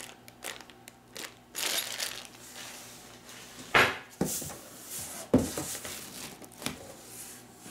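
Plastic packaging wrap crinkling and cardboard being handled, with two sharper knocks about 4 and 5.5 seconds in.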